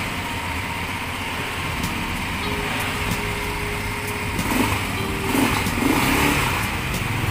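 Apollo ATV Commander 200cc engine running in neutral after starting, briefly louder three times in the second half as the throttle is blipped.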